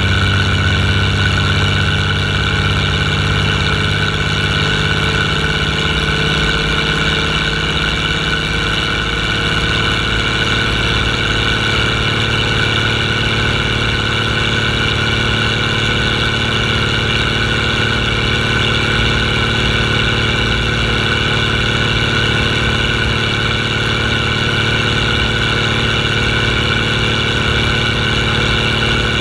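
International Harvester 1455 tractor's six-cylinder diesel running steadily on the road, heard from the hood close to the vertical exhaust stack. Its low note shifts slightly about eight to nine seconds in.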